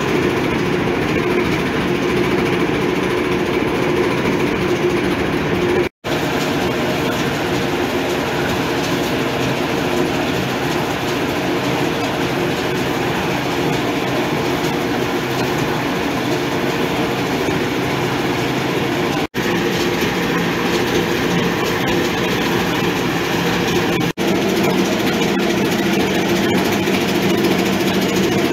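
A grinding mill (molino) runs with a steady, loud mechanical drone as it grinds chiles and other mole ingredients into paste. It drops out for an instant three times.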